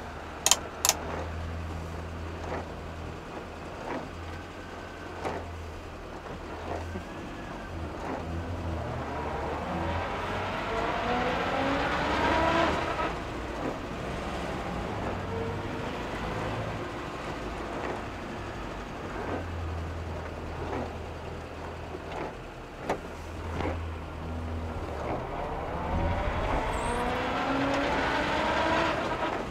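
1966 Morris Minor's A-series four-cylinder engine pulling on the road, its pitch rising twice as it accelerates through the gears, with small knocks and rattles throughout. Two sharp clicks come just after the start.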